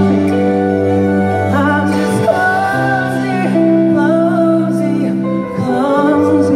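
A male singer performing a song live over amplified backing music, his voice wavering with vibrato above long held chords.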